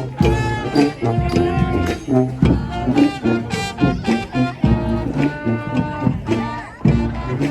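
A street band of brass and saxophones playing a lively tune over a steady beat of drums.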